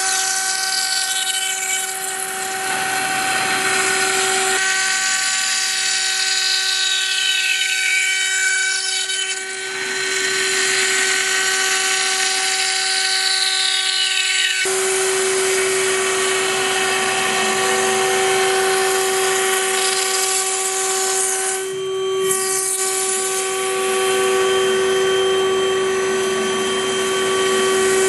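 Five-axis CNC milling machine cutting: a steady high spindle whine over cutting noise. Now and then the motors of the moving axes glide up and down in pitch as the head travels. The whine gets stronger about halfway through and dips briefly near the end.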